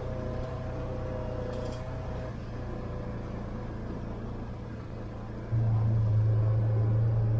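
A motor running with a steady low hum, which gets clearly louder about five and a half seconds in.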